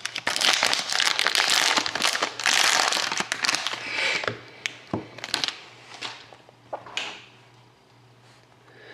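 Plastic packaging of a sealed hockey card product crinkling and tearing as it is opened, followed by a few light clicks and rustles of the contents being handled.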